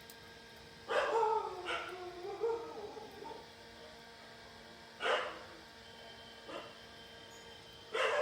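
A dog barking several times, with a drawn-out, wavering whine after the first bark.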